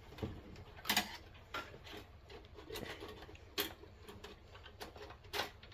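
Scattered small clicks and taps, irregular and roughly one a second, from hands and a tool working at the wiring terminals of a fire alarm control panel while the bell circuits are disconnected.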